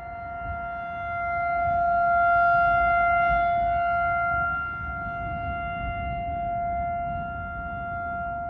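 Outdoor tornado warning siren sounding one steady, unwavering tone. It swells louder between about one and four seconds in, then eases back, as a tornado warning alert.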